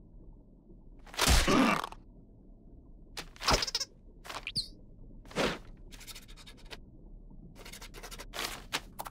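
Cartoon foley of paper being handled: a loud paper rustle a little over a second in, a few shorter rustles and a brief squeaky glide, then quick pen scribbling near the end.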